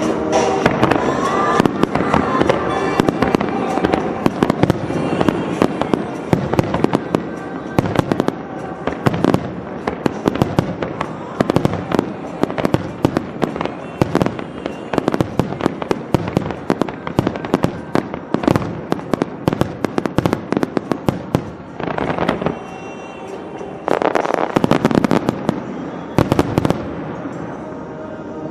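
Fireworks display: a rapid, continuous string of shell launches and bursts, many sharp bangs a second, with music playing underneath. Near the end the bangs twice thicken into a denser rushing hiss as ground fountains fire.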